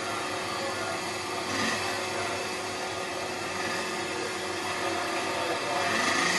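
BSA scooter engine idling steadily, revving up near the end as the rider sets off.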